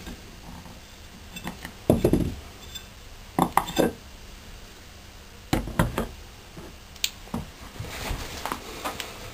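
Metal plates being handled and set down under a Stirling engine's base: a series of separate metallic knocks and clinks, the loudest about 2 s in and a cluster around 6 s.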